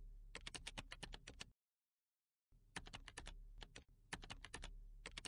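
Computer keyboard typing: rapid key clicks in two runs, broken by a pause of about a second around two seconds in.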